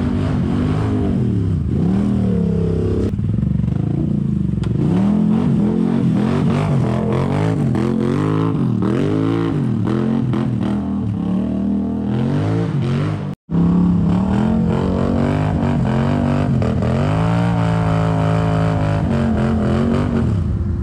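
ATV engine revving up and down again and again as the throttle is worked on a steep, loose climb, each rev rising and falling in about a second. There is a brief break about 13 seconds in.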